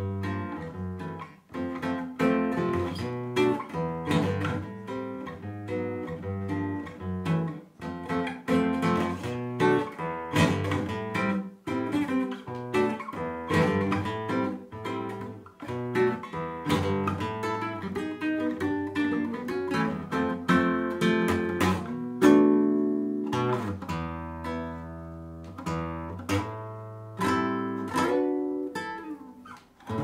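Nylon-string classical guitar played fingerstyle: a flowing run of plucked notes, then from about two-thirds of the way through, a loud chord and slower chords left to ring.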